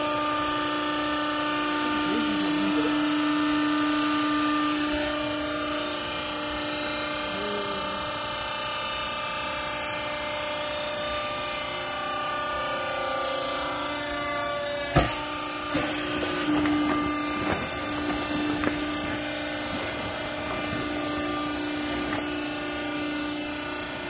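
Hydraulic clothing baler's power unit running, its electric motor and pump humming steadily with a held tone. A single sharp knock comes about fifteen seconds in.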